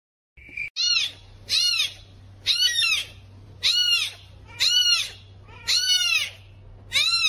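A very young grey tabby kitten crying: about seven high meows, each rising and then falling in pitch, roughly one a second.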